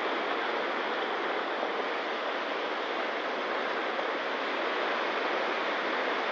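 Sea surf washing in a steady, even rush of breaking waves.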